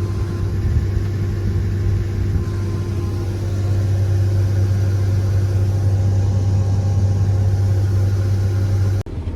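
Combine harvester running steadily under load while harvesting soybeans: a constant low engine drone with a steady whine over it. It cuts off abruptly near the end.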